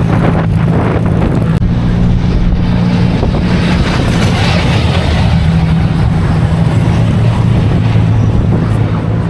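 A car engine running loud at a steady speed, its pitch holding level without revving.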